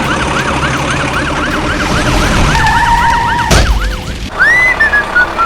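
Emergency-vehicle siren in a fast yelp, its pitch sweeping up and down about four times a second. About two and a half seconds in, a steady two-note tone joins it, then drops away with a thump just past the middle. Near the end a rising whistle and music-like notes begin.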